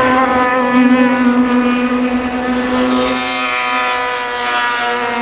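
Le Mans prototype race car engine at speed on the track, a steady high engine note. It is loudest about a second in, then fades, its pitch sagging slightly around three seconds in.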